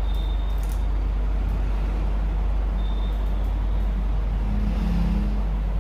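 Steady low hum under a constant background noise, with no change in level.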